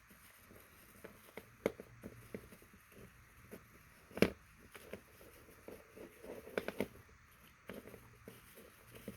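Door-lock parts and their small plastic packaging being handled: scattered light clicks, taps and rustles, with one sharper click about four seconds in and a short flurry of taps between six and seven seconds.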